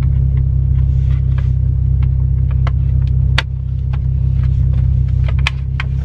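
Steady low rumble of the Infiniti G37's 3.7-litre V6 engine idling, with scattered sharp plastic clicks and taps as the lower steering-column trim is worked loose by hand.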